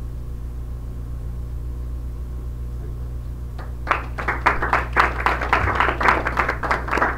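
Steady low room hum, then about three and a half seconds in a small audience starts clapping, a dense patter of many quick claps that grows louder.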